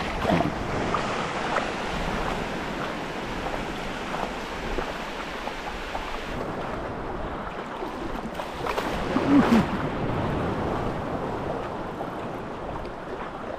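Waves washing on the shore with wind buffeting the microphone, a steady rushing that swells briefly about nine seconds in.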